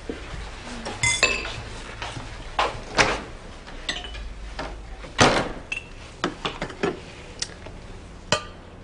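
Kitchen dishes clattering as a cabinet door, a mug and a glass coffee carafe are handled: a dozen or so separate clinks and knocks, the loudest about three and five seconds in.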